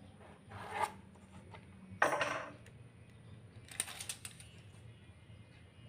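Hand tools handled on a wooden slab: a sudden scrape about two seconds in, then a few light metallic clicks near the middle as a steel ruler is set aside and a tape measure taken up.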